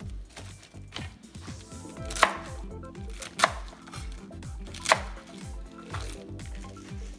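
Cleaver chopping through napa cabbage onto a plastic cutting board: three sharp chops, a second or so apart, starting about two seconds in.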